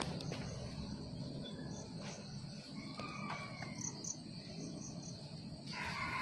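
Insects trilling in a steady high drone, with a short run of higher, evenly spaced chirps about halfway through.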